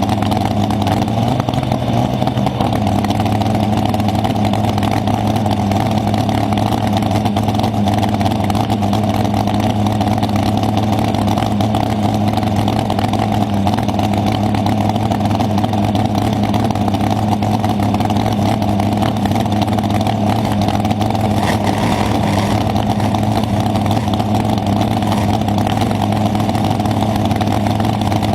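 Dragster engine idling steadily, with a brief small rise in pitch a second or two in.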